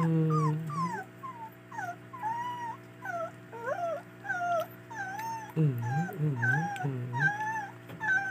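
Beagle puppy whining and whimpering as it is dosed by mouth with a dewormer dropper: a steady string of short, high cries, about two or three a second. A low drawn-out sound comes at the very start, and low wavering sounds follow about six seconds in.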